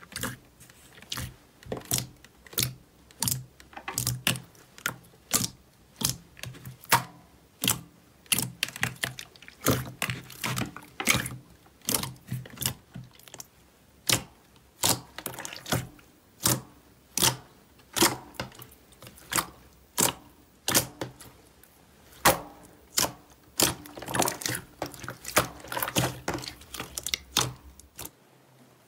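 Slime being pressed and poked by hand, giving a steady run of sharp pops and clicks, about one or two a second.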